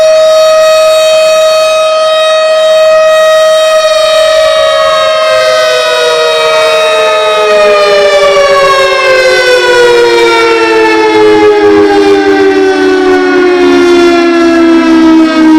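Several outdoor warning sirens (tornado / air raid sirens) sounding together, loud. They hold a steady high wail, then wind down one after another: the first starts falling about a quarter of the way in, the second about halfway, and both keep sliding lower in pitch to the end.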